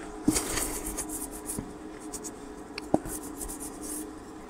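Writing by hand: scratchy strokes of a pen across the writing surface in two short spells, with a few light clicks and a faint steady hum underneath.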